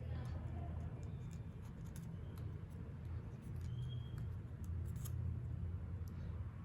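Cardstock being handled and pressed together during gluing: scattered faint clicks and rustles over a steady low background hum.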